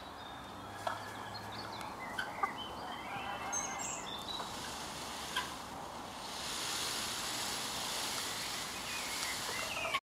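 Farmyard ambience: faint fowl calls and small-bird chirps over a steady outdoor hiss, with a few sharp clicks. The hiss grows brighter about six and a half seconds in.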